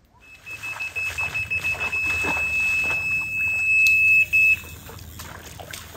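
Electronic carp bite alarm sounding a continuous, rapidly pulsing high beep as line is pulled off the reel: a carp has taken the bait and is running. The beeping stops abruptly after about four and a half seconds.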